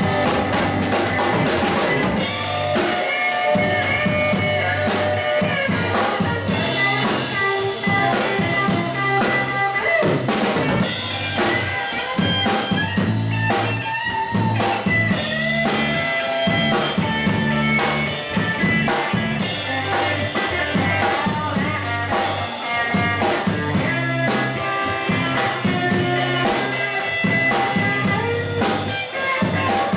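A live rock band plays a bluesy groove on drum kit and electric guitars, with steady drumming under the guitars.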